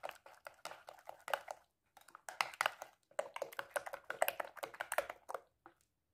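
Metal whisk clicking and scraping against a glass bowl while beating a wet semolina batter, in quick runs of taps with two brief pauses, stopping shortly before the end.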